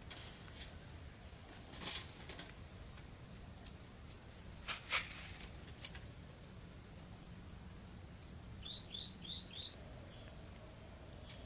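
Scattered rustles and sharp clicks, the loudest about two and five seconds in, then a bird's four quick chirps about nine seconds in.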